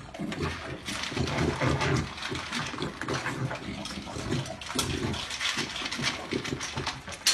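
Puppy eating from a metal bowl with its face in the food: a fast, irregular run of short chewing and smacking sounds.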